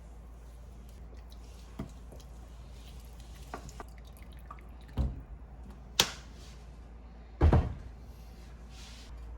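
A few separate knocks and clicks, as of objects being handled or set down, over a steady low hum; the loudest comes near the end.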